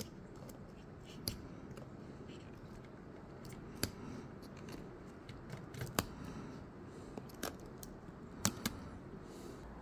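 Faint, irregular small clicks and scratches of an X-Acto knife blade picking at the plastic protector over a laptop's LCD ribbon-cable connector.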